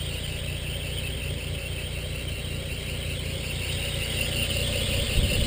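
Toyota Land Cruiser engine idling steadily, with a high-pitched squeal running over it. A low thump about five seconds in.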